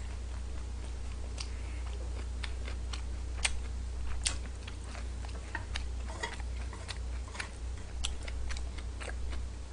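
Scattered light clicks and taps of wooden chopsticks against food and an electric griddle pan, a few a second at most and irregular, over a steady low hum.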